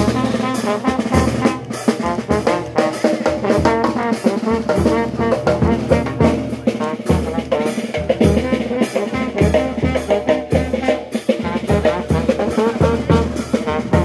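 Chirimía band playing a lively tune: trombone carrying the melody over a steady beat of bass drum and snare drum.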